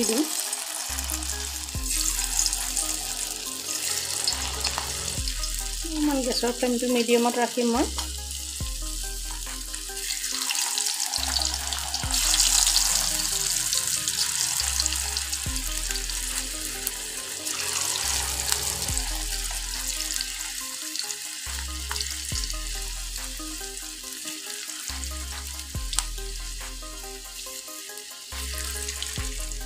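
Potato peels deep-frying in hot oil in a kadai: a steady, dense sizzle of bubbling oil, swelling a little around the middle.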